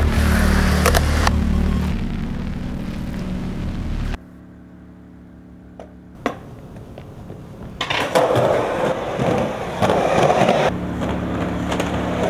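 Backing music cuts out about four seconds in. A couple of sharp board clicks follow, then skateboard wheels rolling loudly over concrete.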